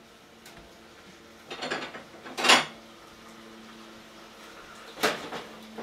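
Kitchen dishes and utensils clattering as they are handled: a few short knocks and rattles about one and a half, two and a half and five seconds in, the middle one loudest, over a faint steady hum.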